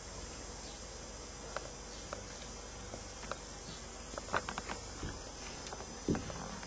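Scattered light clicks and taps, with a quick run of several about four seconds in, over a steady faint hum.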